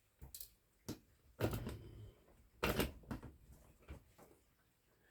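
Irregular clicks and knocks of hand tools and small parts against the old device's chassis, about half a dozen separate strikes with heavier clattering about one and a half and nearly three seconds in.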